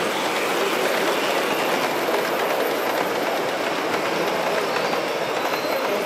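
O gauge (7mm scale) model steam locomotive and coaches running across a layout's girder bridge: a steady running noise of wheels on the track.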